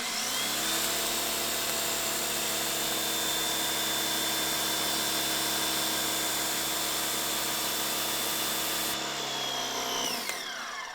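Sun Joe electric pressure washer's motor starting up, rising quickly to speed and running with a steady whine, then winding down with falling pitch near the end as it shuts off.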